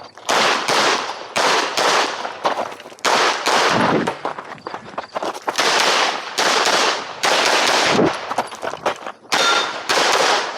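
Glock 47 9mm pistol firing a fast string of shots during a timed stage, often in quick pairs, with short pauses between groups, each shot ringing with echo.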